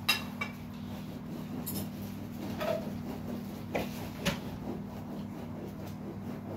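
Hands kneading a bulgur çiğ köfte mixture in a large metal tray: soft rubbing and scraping with several sharp clicks and knocks against the metal, the loudest right at the start. A steady low hum runs underneath.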